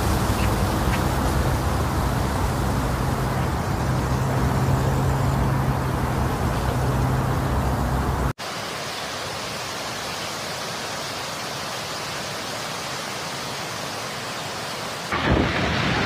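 Hurricane wind and driving rain: a loud, steady rush of noise with heavy low rumble from wind buffeting the microphone. About eight seconds in it cuts abruptly to a quieter, thinner rush of wind and rain, and a louder, gusting rush returns near the end.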